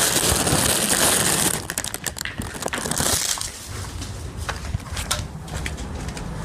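Hand-held phone microphone rubbed and knocked by fingers: a loud crackling rustle for about a second and a half, then quieter scattered clicks and knocks of handling.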